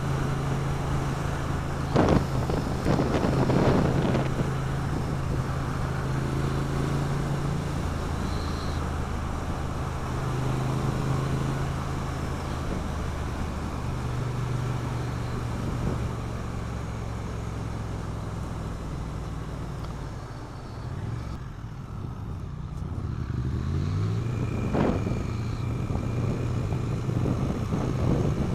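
Triumph Street Twin 900's 900 cc parallel-twin engine on its stock exhaust, heard from the rider's seat at road speed with wind noise. About three-quarters of the way through it drops off as the bike slows, then pulls up through the revs again as it accelerates.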